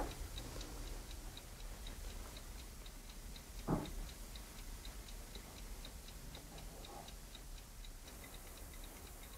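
Faint, steady mechanical ticking, about four ticks a second, with one brief soft sound a little under four seconds in.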